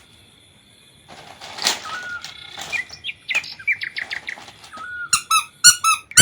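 Bird chirping: short sliding chirps begin about a second in and turn into a fast run of repeated chirps near the end.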